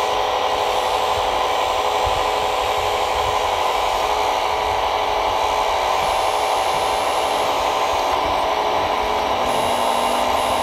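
Small electric hydraulic pump of a scale RC loader crane running with a steady whine of several tones over a noise haze, driving the crane as it sets a log on the trailer.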